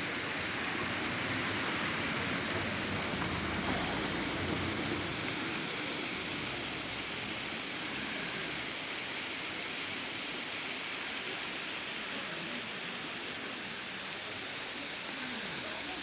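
Waterfall's falling water making a steady, even rush of noise, slightly fuller in the first few seconds.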